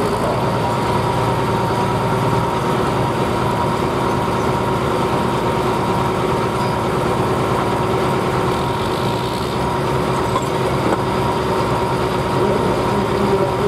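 Diesel engine of a super stock pulling tractor idling steadily at the end of its pull, with a steady whine on top.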